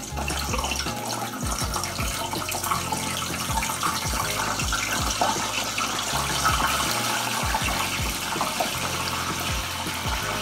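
Hot oil sizzling and bubbling steadily in a deep fryer as raw breadfruit pieces are lowered in one by one for their first fry, over the low bass notes and thumps of background music.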